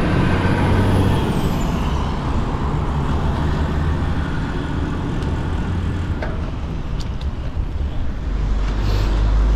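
Steady motorway traffic noise mixed with a heavy, uneven rumble of wind on the microphone.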